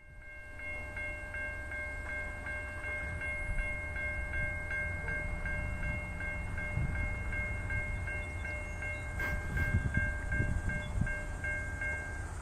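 Railroad grade-crossing bell ringing in rapid, even strikes, each strike ringing on at a few high pitches; it stops just before the end. A steady low rumble runs underneath.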